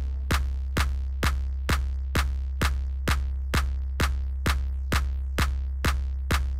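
Electronic background music with a steady kick-drum beat, about two beats a second, over a held low bass.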